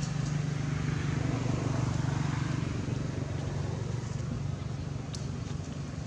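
A steady low motor hum over background noise, with a faint click about five seconds in.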